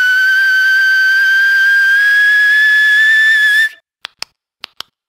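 A beatboxer's mouth-made whistle: one long steady tone, rising slowly in pitch, that cuts off abruptly a little over halfway through. Four short, sharp mouth clicks follow in two quick pairs.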